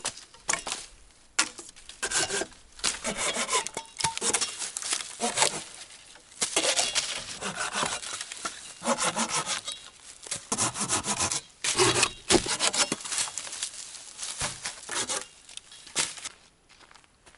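Hand saw cutting a dry tree branch into pieces, with rapid back-and-forth rasping strokes in runs and a couple of short pauses between cuts.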